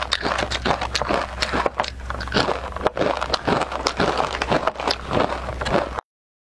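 Close-miked crunching of a crispy fried rice cracker (guoba) being bitten and chewed: a dense, irregular run of crackling crunches that stops abruptly near the end.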